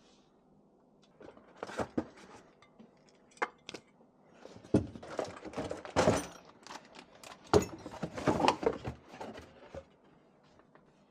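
A run of irregular knocks, clunks and clatter of hard objects being handled and set down, with several sharp strikes among them.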